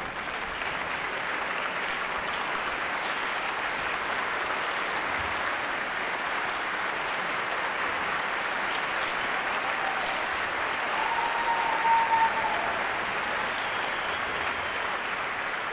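Concert audience applauding steadily after a performance, with a brief high held tone from the crowd standing out about eleven seconds in.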